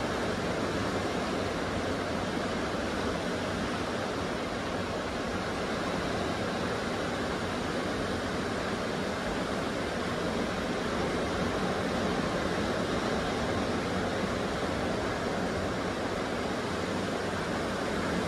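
Steady rush of ocean surf and wind, an even noise with no distinct breaks or claps.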